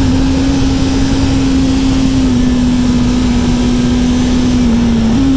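BMW S 1000 RR's inline-four engine and exhaust running hard at high, near-steady revs on track, its pitch sagging slightly, dipping briefly near the end, then stepping back up, over a steady rush of noise.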